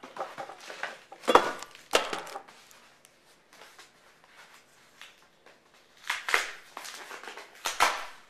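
A mail package being opened by hand, with the packaging crinkling, crushing and tearing in irregular bursts. The loudest bursts come about a second in and again near the end.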